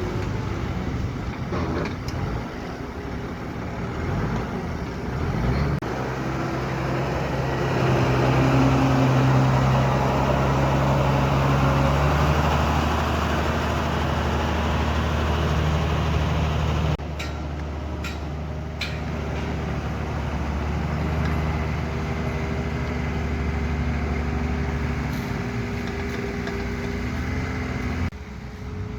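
Heavy construction machine's engine running, its pitch shifting in steps as the load changes, loudest about a third of the way in. The sound cuts off abruptly about two-thirds in and again near the end.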